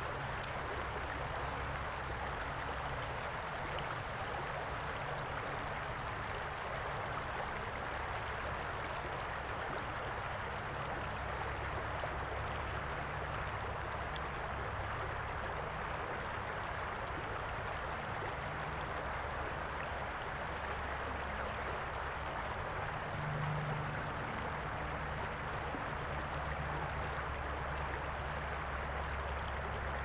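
Shallow river water flowing over a rocky bed: a steady, even rush of water with a low rumble underneath.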